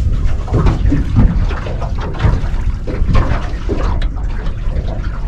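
Water splashing and sloshing in irregular bursts over a heavy low rumble.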